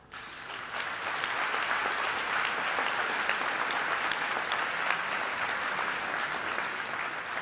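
A large audience applauding, many hands clapping steadily. The clapping builds up quickly at the start and begins to die away near the end.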